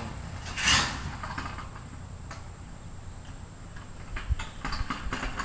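Outdoor background noise: a steady low rumble under a steady high-pitched hiss. A brief loud rustle comes about half a second in, and a few light clicks near the end.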